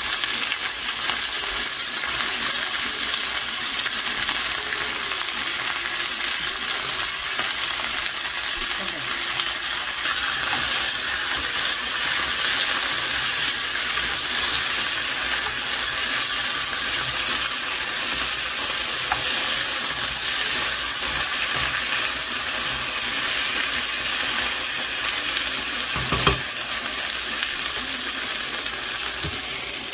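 Sliced potatoes and onion sizzling steadily in hot oil in a nonstick wok, stirred now and then with a wooden spatula. A single knock near the end.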